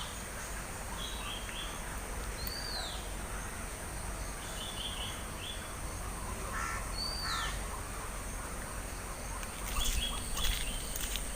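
Morning birdsong in the countryside: one bird repeats a short whistled note that rises and falls, every few seconds. Other birds add bursts of quick chirps. A thin steady high tone runs underneath, and a few sharp clicks come near the end.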